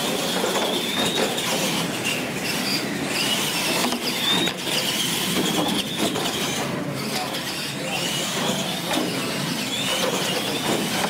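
Radio-controlled monster trucks racing: their motors and drivetrains whine, rising and falling as they speed up and slow down, with tyre noise on the track. A few sharp knocks come as the trucks hit and land off the ramps.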